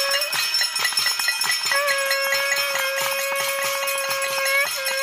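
Metal plates beaten in a rapid, irregular clatter, with a conch shell blown in a long steady note from about two seconds in, breaking off briefly near the end before sounding again. It is a collective noise-making salute.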